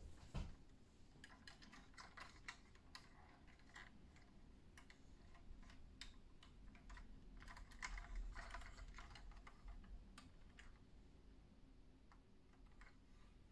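Faint clicks and light rubbing of hands handling a 1:18 scale diecast model car while turning it over, with a louder knock near the start.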